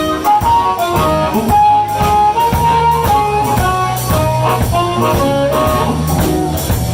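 Blues band playing live: an instrumental intro with a melodic lead line over steady bass and regular drum hits.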